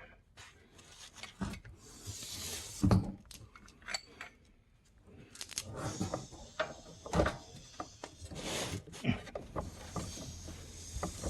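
Hand tools and metal suspension parts clanking and clinking: a handful of separate sharp knocks with quieter stretches between.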